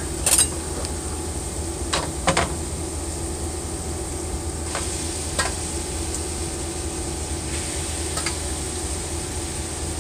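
Diced onions, celery and carrots sizzling in a large pot on high heat, with metal tongs clinking against the steel bowl and pot several times as raw ground beef is added. A steady low hum runs underneath.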